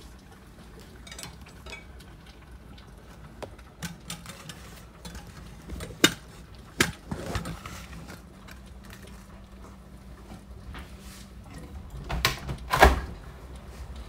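Heavy rain, a faint steady hiss, broken by irregular sharp knocks and taps close to the microphone. The loudest come about six and seven seconds in, with a loud pair near the end.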